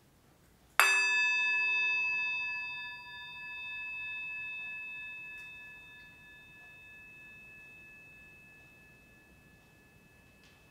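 Metal singing bowl, held on the palm, struck once with a wooden mallet about a second in, then ringing with several clear overtones that slowly fade away over the following seconds.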